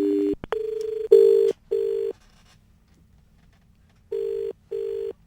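Telephone call connecting over a phone line: brief connection tones, then the ringback tone. The ringback comes as double beeps, two short beeps and a pause, repeating twice.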